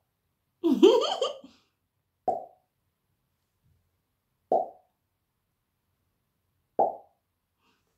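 Finger pops from the mouth, a finger pulled out past the lips or cheek, made three times about two seconds apart, each short and quickly dying away. A brief vocal sound comes about a second in.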